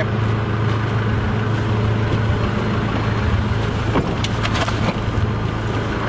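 Iveco LMV Lince armoured vehicle's engine idling steadily with a low hum, with a few clicks and knocks about four seconds in and near the end.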